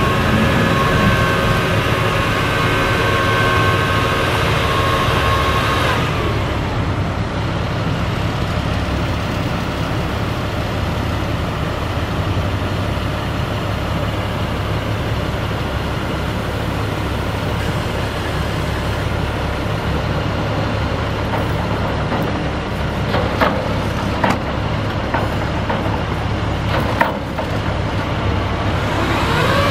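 Truck crane's diesel engine running with the whine of its hydraulic pump while the boom is worked. The whine holds steady for about six seconds, then falls away to a steady engine drone, and climbs again right at the end. A few sharp clicks come near the end.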